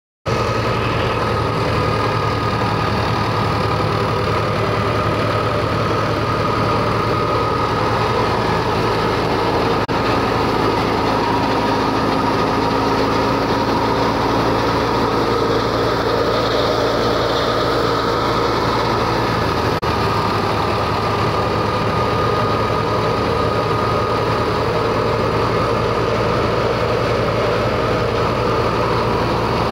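Massey Ferguson 260 Turbo tractor's diesel engine running steadily at about 1800 rpm. A working grain thresher's run is mixed in with it.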